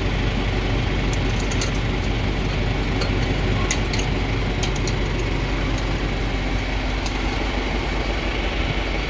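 Tractor engine running steadily, driving a forage blower that is filling a silo with chopped corn, with scattered light ticks.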